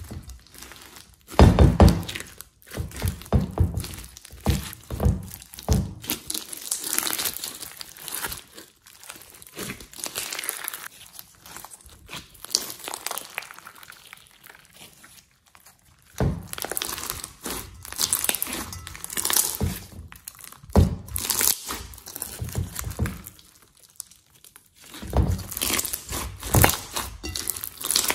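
Slime packed with small foam beads being squeezed, stretched and pressed by hand: wet squishing with crackly crunching from the beads, in irregular bursts with quieter spells, the loudest a thump about a second and a half in.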